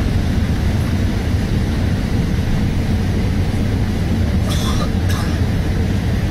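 Steady low rumble of an Airbus A380's engines and rushing air, heard inside the passenger cabin on the approach to landing. Two brief, faint higher sounds come about four and a half and five seconds in.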